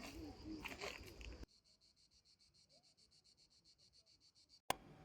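An insect chirping high in rapid, even pulses, about ten a second. It starts abruptly about a second and a half in, after some faint wavering outdoor noise, and a sharp click cuts it off near the end.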